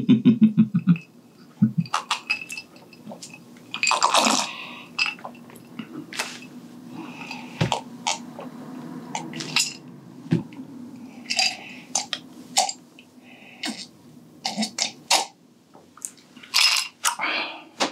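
A man's laugh trails off in the first second. Then a drink is sipped from a glass tumbler, with ice cubes clinking against the glass, slurps and swallows, and scattered small clicks and crunches over a faint steady hum.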